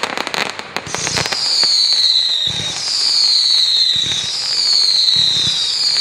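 Pyro Demon 'Demons Fury' fireworks cake firing. Dense crackling from gold crackle stars dies away about a second in. Then come four shots in a row, each a dull launch thump followed by a loud whistle that falls in pitch and lasts about a second and a half.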